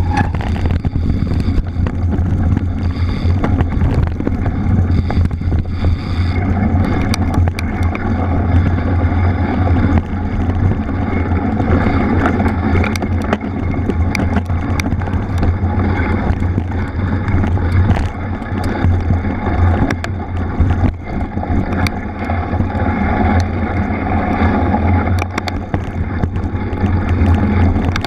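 Wind buffeting the microphone of a camera riding along on a mountain bike on a wet off-road trail, with a steady low rumble of tyres and frequent sharp clicks and rattles from the bike over rough ground.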